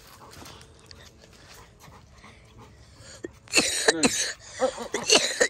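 Dog panting hard: a quick run of short, breathy huffs that starts about three and a half seconds in.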